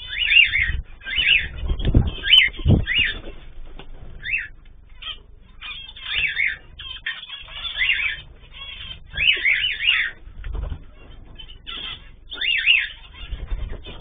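Mixed cage birds in an aviary calling: many short chirps that rise and fall in pitch, repeated every second or so, with a few low thumps. Heard through a security camera's microphone, which cuts off the high end.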